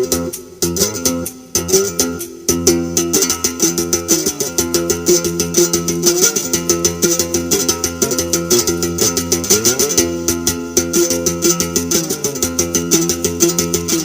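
Background music led by plucked string instruments, with a fast, even rhythm of light percussive ticks and a few sliding notes.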